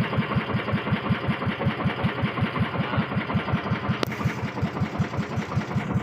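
Small boat's engine idling with a steady, rapid chug of about six or seven beats a second. One sharp click about four seconds in.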